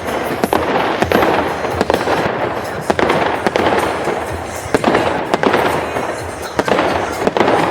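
Fireworks going off: a dense, continuous crackle with many sharp bangs at irregular intervals, several in each second.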